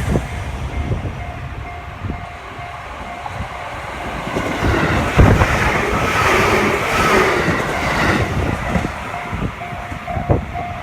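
Japanese level-crossing warning bell ringing in a quick repeating beat while a train runs over the crossing; the train's wheel-and-rail noise swells up in the middle and drowns the bell for a few seconds. Wind buffets the microphone throughout.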